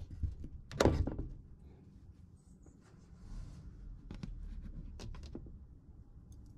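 A thump about a second in, then a few light clicks of metal cutlery being picked up and handled over a plate.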